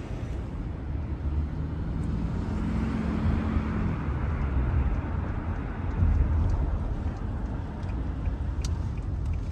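Car driving, heard from inside the cabin: a steady low rumble of road and engine noise, swelling briefly about six seconds in.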